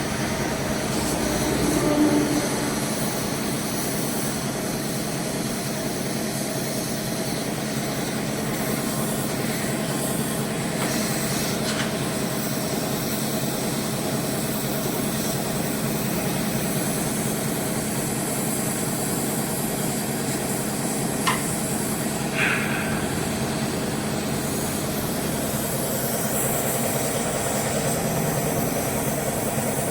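Steady whirring hum and hiss of a small electric motor running continuously, from plastic-welding work on a motorcycle guard. A single sharp click comes about 21 seconds in, and a short scrape about a second later.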